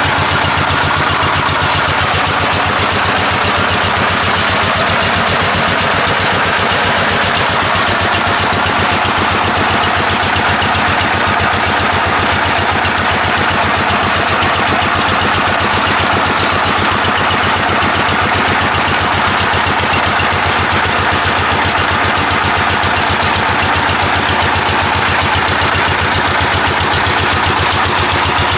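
Single-cylinder-style diesel engine running steadily at a bore well, with a fast, even beat that does not change.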